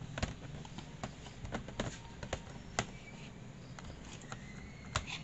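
Scattered plastic clicks and taps of a laptop battery being handled and fitted back into its bay in the laptop's underside, with two sharper clicks about three seconds in and near the end.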